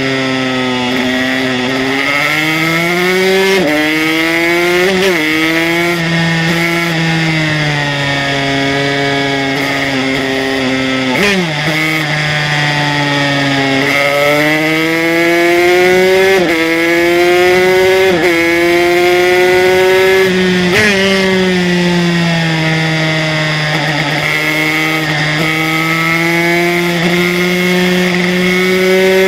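Aprilia RS125 two-stroke single-cylinder engine, fitted with an HTM Racing 144cc kit, running at high revs on track. Its pitch rises and falls with the throttle and drops or jumps sharply at several gear changes.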